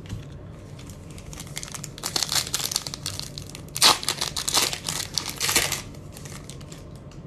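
A Bowman Platinum foil trading-card pack crinkling and tearing as it is ripped open by hand. The crinkling starts about a second and a half in, is sharpest about four seconds in, and stops about six seconds in.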